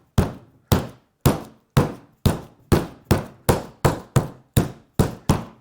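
Chicken breast in plastic wrap being pounded flat on a board, a steady run of sharp knocks at about two blows a second, quickening slightly.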